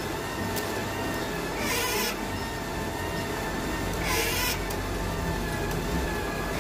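Wire-feed motor of a gasless MIG welder running steadily while the wire-inch button is held, driving the feed roll that pushes flux-cored wire up the torch cable. A short hiss recurs about every two and a half seconds.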